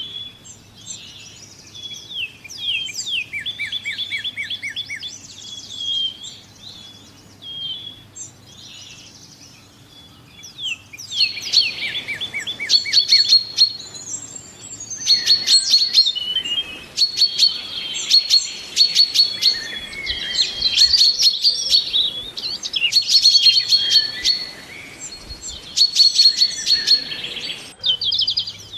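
Several small songbirds chirping and singing in short, high calls and trills. About eleven seconds in it becomes a louder, busier chorus of rapidly repeated high notes.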